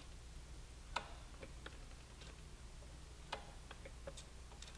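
Faint, irregular metallic clicks and ticks of a wrench on a motorcycle brake caliper's bleeder screw as it is opened and closed during brake bleeding. The sharpest clicks come about a second in and about three seconds in.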